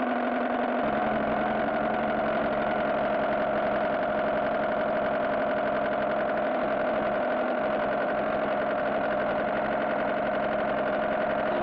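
Car engine idling steadily, an even drone that neither revs nor changes.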